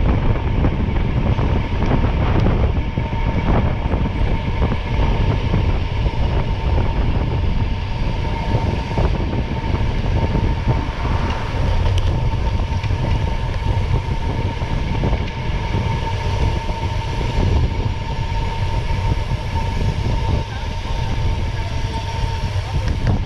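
A vehicle under way: a steady, loud rumble with a constant whine above it that holds one pitch throughout.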